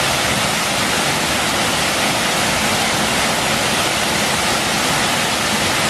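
Steady, loud rush of a waterfall: falling water crashing continuously into a pool.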